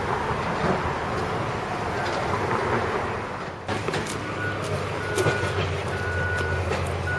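A truck's engine running, with a reversing alarm that starts a little past halfway: a string of steady single-tone beeps, about one a second.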